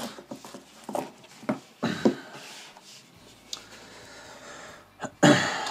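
Handling noises as a folding knife is taken out of its nylon case: a few light knocks and clicks, soft rustling, then a louder burst of noise near the end.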